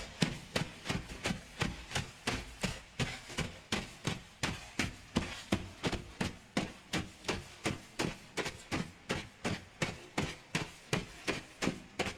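Footsteps of leather shoes crunching on snow, a steady walking rhythm of roughly three steps a second.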